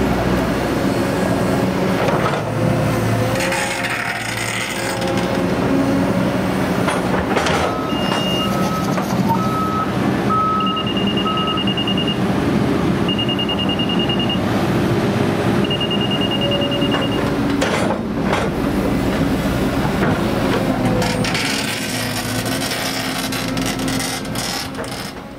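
Hydraulic excavator's diesel engine running steadily under load while the bucket digs and scrapes through rocky clay, with scattered knocks. Midway a run of electronic beeps sounds: several short lower beeps, then four longer higher-pitched tones.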